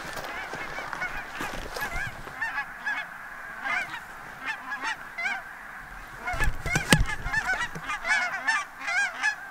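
A large flock of geese flying overhead, many birds honking at once in a constant overlapping chorus of short, high calls. A sharp knock cuts through about seven seconds in.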